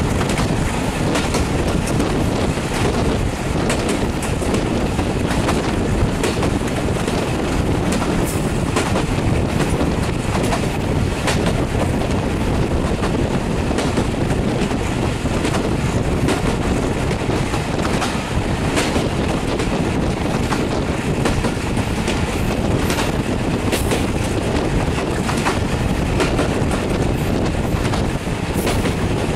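Broad-gauge passenger train running at speed, heard from an open coach window: a steady rumble of wheels on the rails, with scattered sharp clicks as the wheels pass over rail joints.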